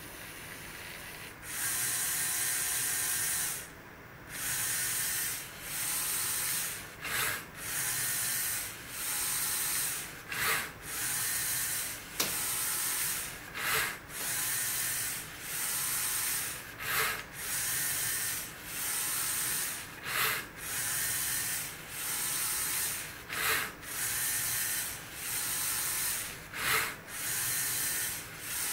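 LEGO SPIKE Prime motors and plastic Technic gears whirring in short repeated runs with brief pauses between them, as the machine works through its drawing cycle. A brighter, harsher burst comes about every three seconds.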